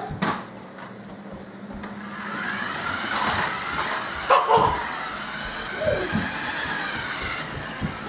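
Dickie Toys RC Dirt Slammer toy buggy driving across a hard floor: its small battery-powered electric motor whines, and the sound rises and falls in pitch as it speeds up and slows. It starts about two seconds in, with a few sharp knocks along the way.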